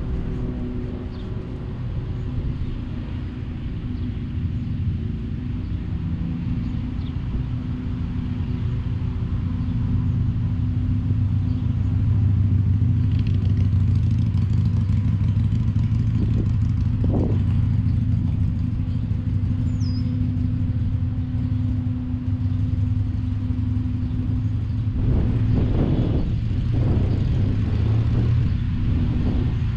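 Steady low mechanical rumble with a constant hum, and a few short knocks about two thirds of the way through.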